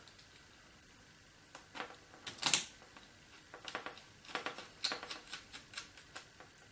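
Light, irregular clicks and ticks of hands and a small screwdriver working at a laptop screen panel's mounting screws. A quiet start, then a string of sharp clicks from about a second and a half in, the loudest around two and a half seconds in.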